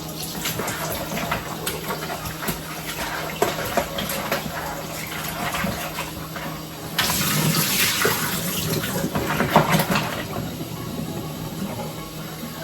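Cow foot pieces rinsed in plain water in a bowl: water sloshing and splashing, with short knocks of the pieces against the bowl. About seven seconds in a heavier rush of water comes in for about three seconds.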